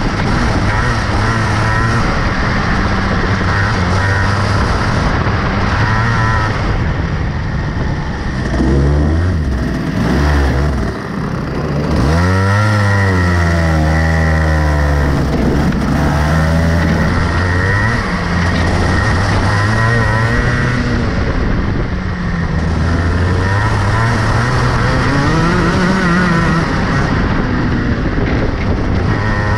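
Rotax Max 125cc single-cylinder two-stroke kart engine heard from onboard, revving up and down through the corners. The note drops about ten seconds in, then climbs sharply from about twelve seconds as the kart accelerates away, with a steady hiss of wind over it.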